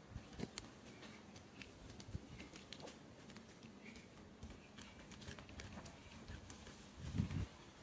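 A macaque chewing a raw green bean pod close to the microphone: scattered small crisp clicks and crunches. A louder low thump comes near the end.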